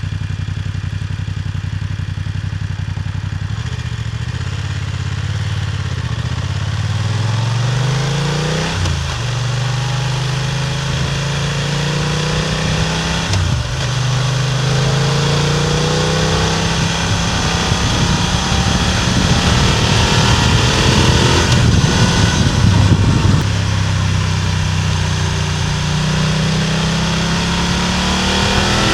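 BMW F900R's parallel-twin exhaust recorded close up while riding, accelerating through the gears. The engine note rises steadily and drops sharply at each upshift, about a third of the way in and again near halfway, then climbs once more near the end.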